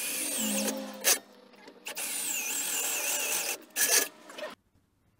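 Cordless drill boring into a metal bracket, the bit squealing with a wavering high pitch, in two runs with a sharp knock between them and another knock after the second run.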